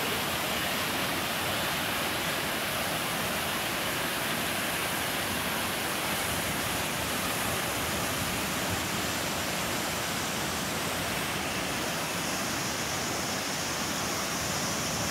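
Steady rush of water from a multi-tiered waterfall cascading down rock ledges, a constant even noise with no breaks.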